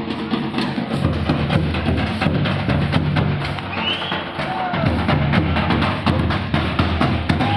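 Drums beating a quick, steady dance rhythm with many closely spaced strikes.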